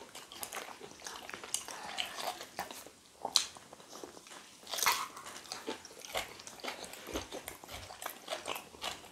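Close-up eating sounds: chewing and lip smacking of soft food eaten by hand, with scattered wet mouth clicks and a few louder smacks.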